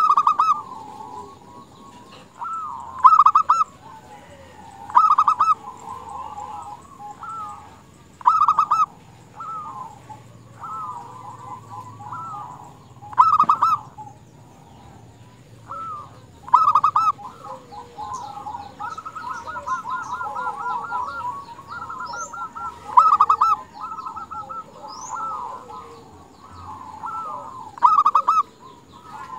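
Female zebra dove (perkutut) calling: about eight loud bursts of rapid, pulsed cooing notes, a few seconds apart, with softer dove calls in between. It is a female calling to draw males into calling.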